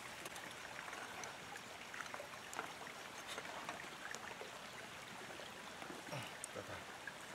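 Creek water running steadily in the background, with a few faint scattered clicks.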